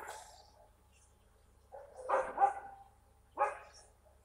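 A dog barking in short single barks with gaps of about a second, including a quick double bark about two seconds in.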